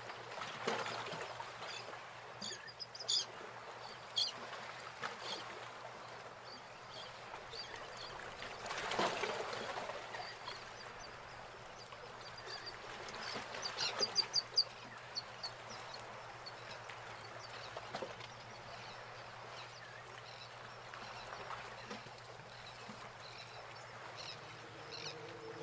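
Faint steady background hiss with a few clusters of short, high birds' chirps, the loudest run about 13 to 15 seconds in.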